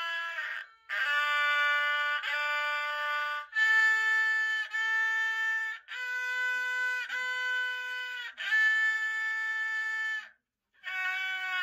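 A haegeum, the Korean two-string bowed fiddle, played solo in a series of long held notes with short breaks between bow strokes, some notes sliding in pitch as they end. It stops briefly near the end before the next note.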